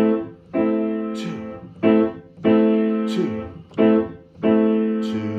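Piano playing an A minor chord (A, C and E together), struck in pairs: a short chord followed at once by a longer held one that rings and fades, three times over.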